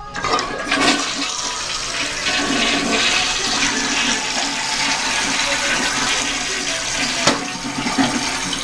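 A 1994 Crane Galaxy Lite toilet flushing: a sudden rush of water from the tank into the bowl that keeps swirling and draining steadily, with one sharp knock about seven seconds in.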